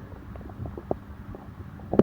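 Upset human stomach gurgling faintly after a meal, with small scattered pops and clicks.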